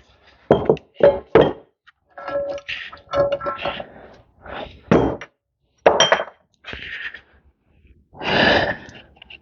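Metal parts knocking and clinking as a tractor component is taken apart by hand. There are several sharp knocks, some with a short metallic ring, and a brief scraping rustle near the end.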